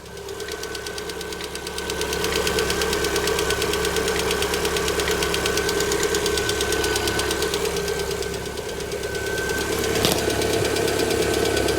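Lada Vesta 1.6 engine idling cold at about −30 °C, with a fast, even ticking from a hydraulic valve lifter near the fourth cylinder that has not yet pumped up with oil. One sharper click comes about ten seconds in.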